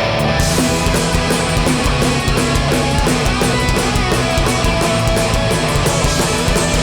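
Live hardcore punk band playing an instrumental passage without vocals: distorted electric guitars, bass and pounding drums. The full band comes in right at the start after a sparser guitar passage.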